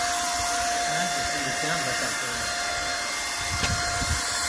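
Paint spray gun hissing steadily as it sprays paint onto a tractor's fuel tank, with a constant whining tone under the hiss.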